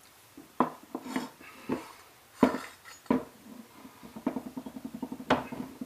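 Steel parts of a Hilti DX-350 powder-actuated tool clinking and knocking as they are handled and set down, with a quick run of light metallic clicks near the end.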